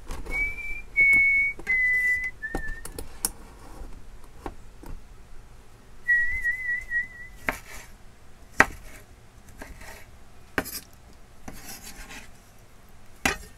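Someone whistling a short tune: four held notes stepping down in pitch, then a wavering note about six seconds in. A chef's knife knocks now and then on a bamboo cutting board while tomatoes are chopped, with a few short scraping rasps.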